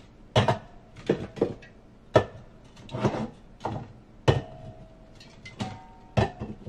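Drink cans and bottles being set down and shuffled on pantry shelves: a dozen or so irregular knocks and clinks, a few ringing briefly.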